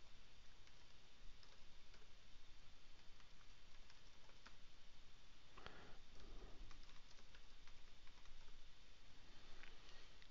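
Faint clicking of a computer keyboard as words are typed, a loose string of light key taps.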